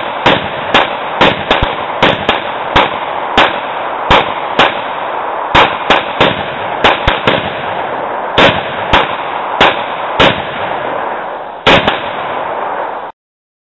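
Rapid handgun fire from several shooters at once: about two dozen shots at uneven spacing, roughly two a second, with a pair of close shots near the end before the firing stops.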